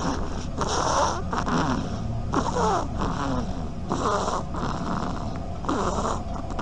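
A sleeping animal snoring: four noisy breaths, about one every second and a half to two seconds, several with a squeaky whistle that falls in pitch.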